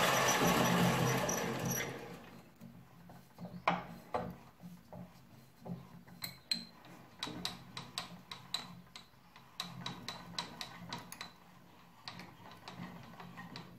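Homemade lathe running while drilling into a metal rod, then winding down and stopping about two seconds in. After that comes a string of light metallic clicks and clinks.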